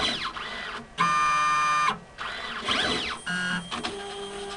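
Drive motors of an automated pipetting analyzer whining as its robotic arm moves and lowers the pipette into a tube. The pitch rises and falls twice as the arm speeds up and slows down. A loud steady whine lasts almost a second, starting about a second in, and shorter steady whines come near the end.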